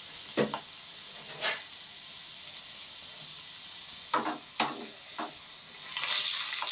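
Hot oil sizzling in a small tadka pan as garlic, dried red chillies, cumin, mustard seeds and asafoetida fry for tempering dal, with a spoon scraping and tapping the pan several times as it stirs. The sizzle swells near the end.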